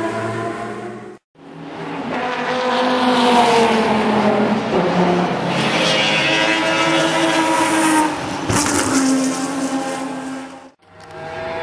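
Mazda 20B three-rotor rotary engine of an RX-8 race car at racing speed, its pitch rising and falling through gear changes. There is a short crackle about eight and a half seconds in, and the sound cuts out briefly about a second in and again near the end.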